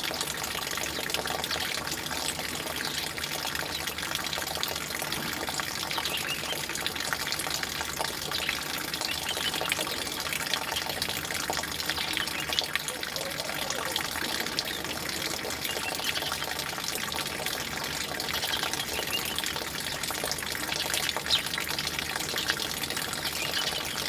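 House sparrows chirping over a steady rush of running water.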